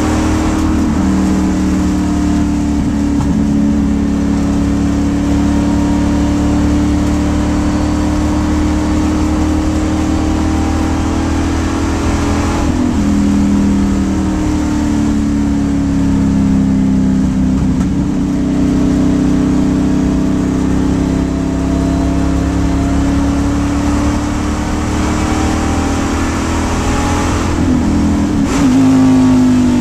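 Race-prepared Camaro's LT1 V8 running hard, heard from inside the cockpit. The engine note rises and falls several times with throttle and gearing as the car laps the track.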